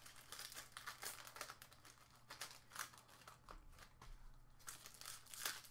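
Faint crinkling and scattered small clicks of trading card pack wrappers and cards being handled.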